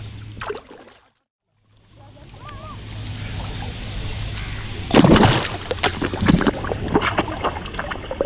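Lake water splashing and sloshing, with a loud splash about five seconds in and smaller splashes after it. The sound cuts out completely for under a second about a second in.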